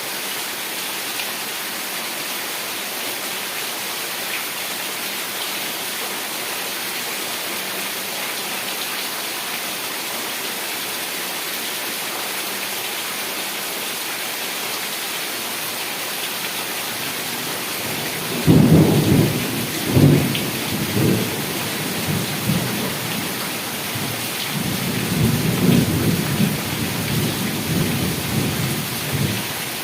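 Heavy rain falling steadily with an even hiss. About two-thirds of the way in, thunder breaks in with a sudden low rumble that rolls on in several swells for about ten seconds before stopping near the end.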